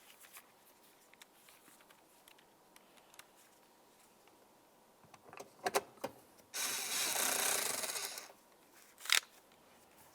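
The T27 mounting screw of a car's interior door handle being driven in: a few light clicks of handling, then a steady harsh burst of tool noise lasting under two seconds, and one sharp click near the end.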